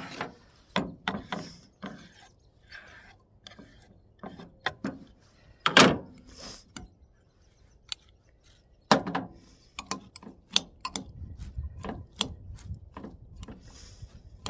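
Irregular knocks and clicks of a kitchen knife and utensils on a cutting board and bowl while tomato is chopped and gathered for pico de gallo, with louder knocks about six and nine seconds in.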